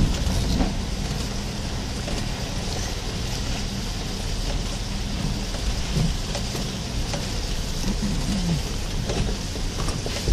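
A 1998 Chevy Blazer's engine runs low and steady as the truck crawls over a rocky creek-bed trail, heard from inside the cab. Now and then a short knock comes from rocks under the tyres, a few of them about two-thirds of the way through.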